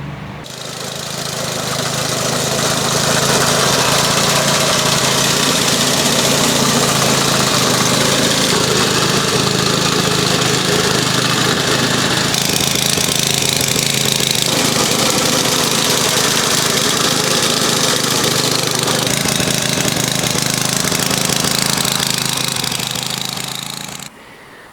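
Petrol-engine bar mower running steadily at a constant engine speed while cutting. It rises over the first few seconds and drops away near the end.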